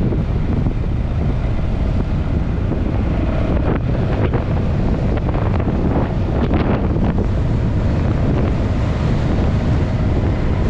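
Wind buffeting the microphone of a camera on a motor scooter riding at road speed, with the scooter's running noise underneath and a few stronger gusts.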